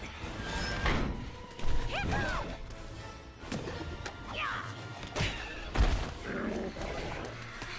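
Animated film action soundtrack: dramatic score under heavy crashes and thuds, with two short sliding shrieks about two seconds in and again past the middle.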